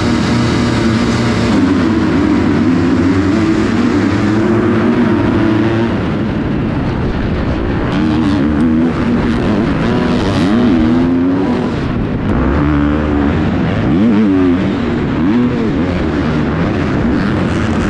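Supercross dirt bike engines racing, revving up and down over and over, with more than one bike heard at once at times.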